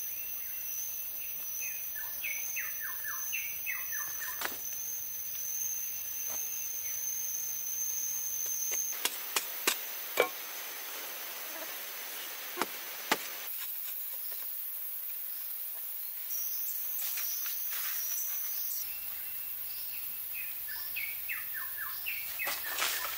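Forest ambience: small birds chirping and a steady high insect drone. Around the middle come a handful of sharp knocks of a digging stick striking hard earth.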